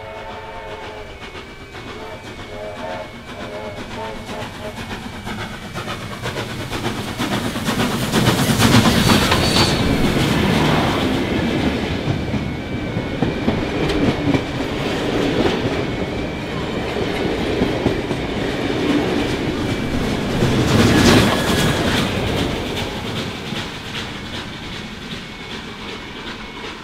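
NSWGR 32 class steam locomotive sounding its whistle twice near the start, then running past with its carriages, wheels clattering over rail joints. The passing is loudest about a third of the way in and again near the three-quarter mark, easing as the train moves away.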